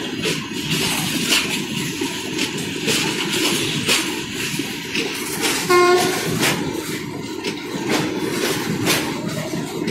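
Goods train of open steel wagons rolling past close by: a steady rumble of wheels on rail, with repeated sharp clacks as the wheel sets cross rail joints. A short horn toot sounds about six seconds in.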